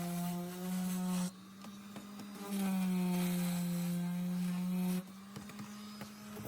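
Small electric motor running with a steady whine whose pitch shifts slightly. It drops in loudness about a second in, picks back up, then drops again near the end.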